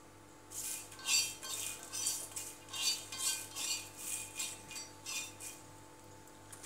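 A utensil scraping unpeeled garlic cloves across a hot iron tawa, stirring them so they dry-roast evenly. It is a quick run of short scrapes, about two to three a second, that stops about a second before the end.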